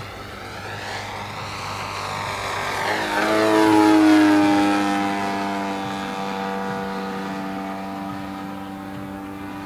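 Large radio-controlled model RV-4 aeroplane flying past with its propeller engine running: the pitch drops sharply as it passes about three seconds in, loudest just after, then the lower drone slowly fades as it flies away.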